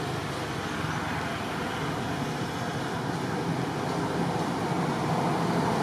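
Steady, even rushing background noise outdoors, like distant traffic or wind, slowly growing a little louder.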